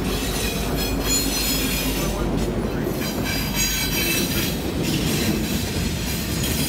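Diesel freight train passing close by: the trailing locomotives' engines running while steel wheels clatter over the rails, with intermittent high-pitched wheel squeal. The first covered hopper cars come through near the end.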